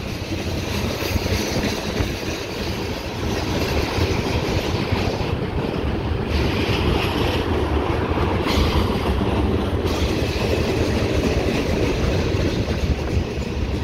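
CN freight train passing close by: a steady rolling noise of wheels on the rails as tank cars and lumber-loaded flatcars go past.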